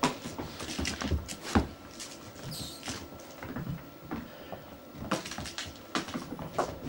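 Scattered taps, knocks and scuffles of kittens play-hunting on a carpeted floor, with one louder thump about a second and a half in and a quick run of taps about five seconds in.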